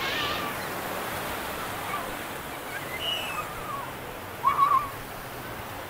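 Busy beach ambience: steady surf with faint distant voices, and a short, loud, wavering call about four and a half seconds in.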